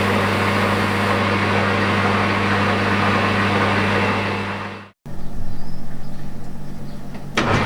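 Metal lathe running with a steady motor hum and a hiss of grinding, fading out and cutting off about five seconds in. A different, pulsing machine sound follows, then a sharp click near the end as the steady running returns.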